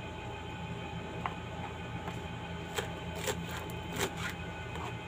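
Knife chopping romaine lettuce on a plastic cutting board: several irregular sharp knocks, mostly in the second half, over a steady low hum.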